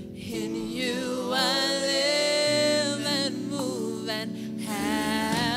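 Gospel worship music: a singer's voice with vibrato over held instrumental chords.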